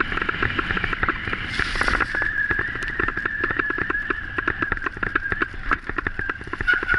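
Bicycle rolling fast over bumpy grass: a dense clatter of rattles and clicks, with low wind rumble on the microphone. A steady high squeal joins about two seconds in and lasts a few seconds.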